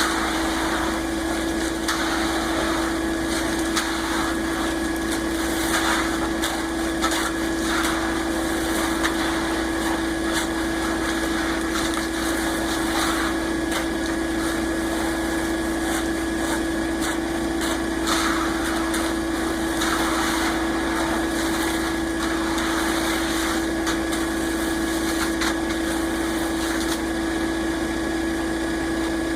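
Concrete mixer truck running steadily during a pour, with a constant droning hum, and irregular scraping noises on top.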